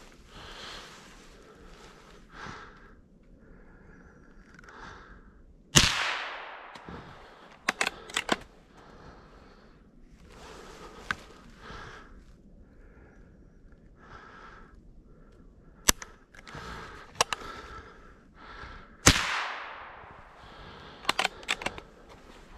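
Two shots from a scoped Savage Sporter .22 bolt-action rifle, about 13 seconds apart, each with a short echo. About two seconds after each shot comes a quick run of sharp metallic clicks as the bolt is worked to chamber the next round.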